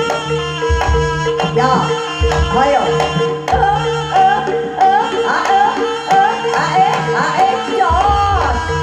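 Live East Javanese jaranan music: hand-drum strokes over a steady held tone. From about a second and a half in, a sliding, wavering lead melody rises over them.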